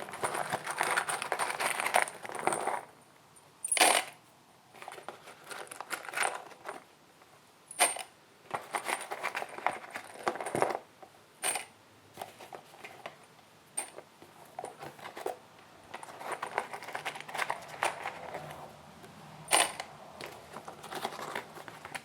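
Loose 1.5-inch roofing nails poured in several bursts into a plastic Milwaukee Packout organizer bin, rattling and clinking, with a few single sharp knocks in between.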